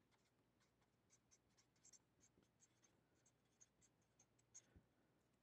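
Faint scratching of a marker writing on paper: a quick run of short strokes that stops about four and a half seconds in.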